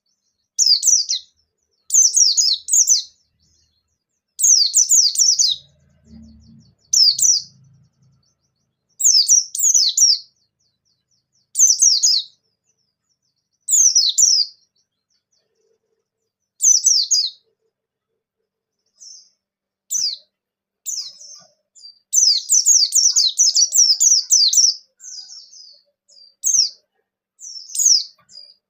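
Pleci bustomi (white-eye) singing in loud, rapid, high-pitched twittering phrases, one short burst about every two seconds, with a longer unbroken run of song about three-quarters of the way through. This is the 'gacor nembak' full song used as a lure to set other white-eyes singing.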